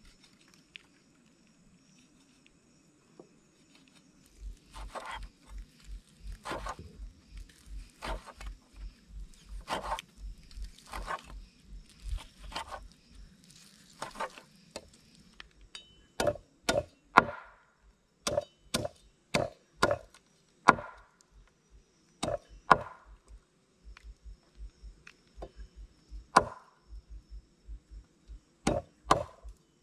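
Knife chopping meat on a wooden cutting board, mincing it for laab, in uneven strokes about one or two a second. The strokes get louder and sharper from about halfway through.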